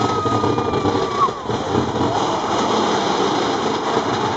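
Mine-train roller coaster running along its track: a steady rumbling clatter of the train's wheels on the rails, with a high held tone through the first second or so.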